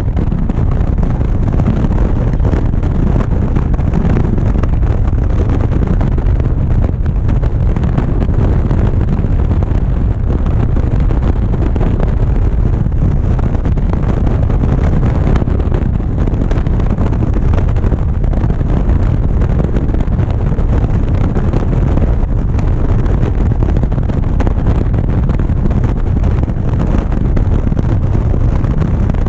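Steady, loud wind rumble on a GoPro's microphone on a motorcycle at highway speed, with the bike's engine and road noise mixed underneath. It holds even throughout, with no changes in pace or sudden sounds.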